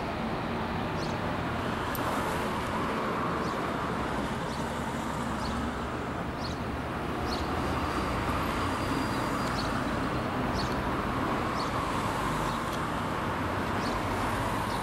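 Steady traffic on a busy road, with vehicles passing that swell and fade.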